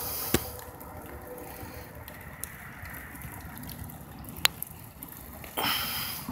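The last of distant diesel locomotive horns dies away at the start, leaving a low rumble. Wind buffets the microphone, with a sudden louder rush of wind noise near the end.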